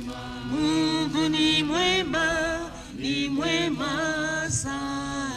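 Voices singing a slow hymn, with long held notes that slide up and down between pitches.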